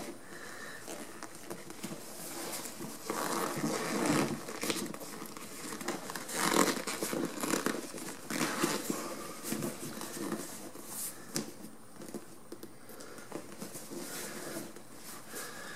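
Motorcycle seat upholstery cover being pulled and tucked over the foam by hand: intermittent rustling and crinkling of the cover material as it is fitted.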